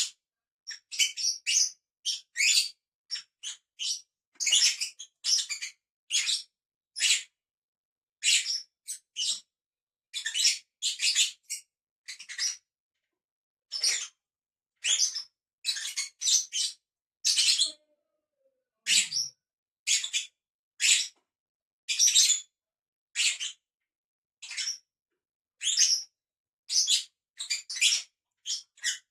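Lovebirds chirping: a long series of short, shrill chirps, about one to two a second, with brief pauses between runs.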